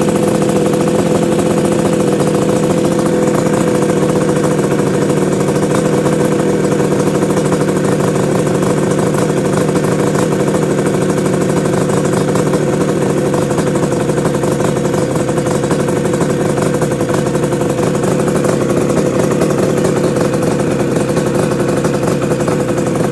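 1972 Yamaha R5C's air-cooled two-stroke twin idling steadily at about 2,000 rpm while warming up after a cold start.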